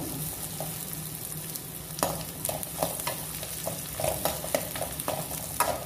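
Garlic, onion and ginger sizzling in hot oil in a metal pan, being softened, while a spatula stirs them with short scrapes and clacks against the pan, coming thick and fast from about two seconds in.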